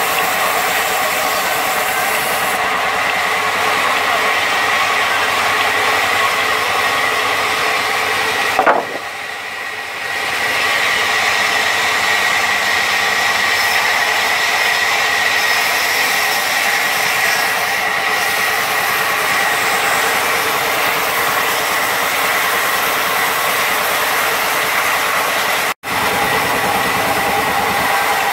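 Large sawmill band saw running and cutting through a log, driven by a stationary engine: steady loud machine noise with a constant high tone. The sound dips briefly about nine seconds in and cuts out for an instant near the end.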